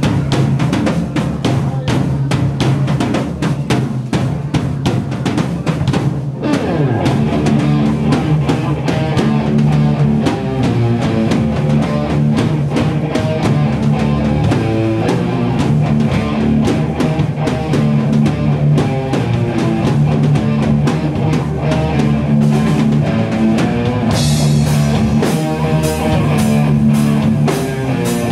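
Live doom metal band playing: distorted electric guitar riffs over a drum kit with heavy bass drum. Dense drumming drops out briefly about six seconds in, then slow sustained chords continue, with cymbals washing in near the end.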